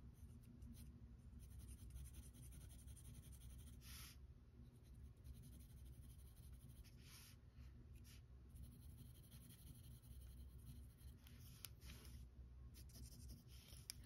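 Faint graphite pencil scratching on paper in strokes, with a few louder strokes now and then.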